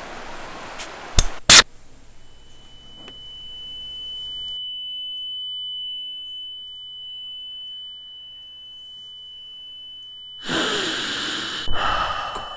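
Two sharp cracks about a second and a half in, then a fizzing hiss that stops a few seconds later while a steady high whistle-like tone runs on. Near the end comes a loud breathy sigh.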